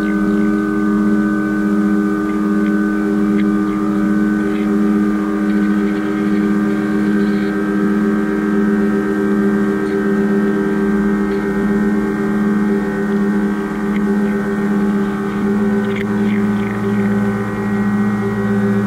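Drone music: several held tones layered together with a slow, even pulsing, and a deeper tone coming in about three quarters of the way through, with faint scattered ticks above.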